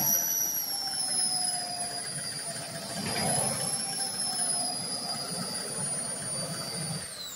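Radio-controlled model speedboat running at speed: a high-pitched motor whine that wavers slightly, then drops sharply in pitch near the end as the throttle is cut.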